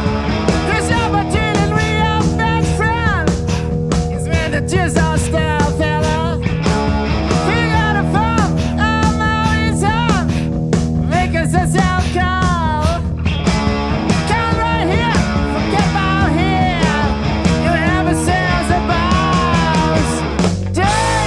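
Hard rock band playing live: an electric lead guitar solos with bent and wavering notes over rhythm guitar, bass and drums.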